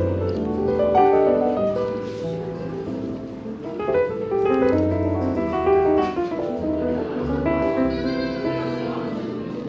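Smooth jazz piano music with a walking bass line, notes moving steadily.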